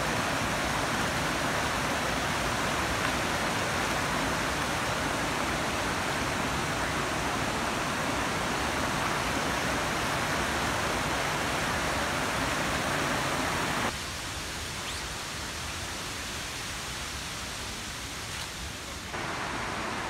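Waterfall: water rushing over a flat rock ledge and pouring over the lip in a steady, loud rush. About 14 s in the rush drops to a quieter, more distant water sound, and it rises a little again near the end.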